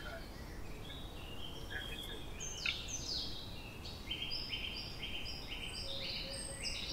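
Small birds chirping over a faint steady hiss: scattered short calls, then a quick run of short repeated notes at two alternating pitches from about four seconds in.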